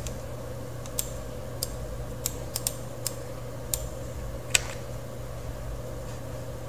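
Computer mouse clicking about nine times at irregular intervals over the first five seconds, the loudest near the middle, with a steady background hum underneath.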